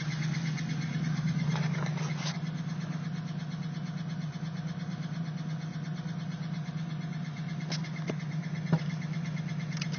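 1997 LT1 V8 engine idling steadily, with a fine rapid ticking over a constant low hum. The owner hears a noise from the back of the engine that has appeared since a water pump install.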